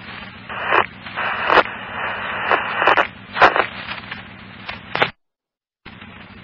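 Radio scanner hiss and crackle from an open fire-department channel with no speech, swelling in repeated surges with a few sharp clicks. It cuts off abruptly about five seconds in, and a fainter hiss returns a moment later.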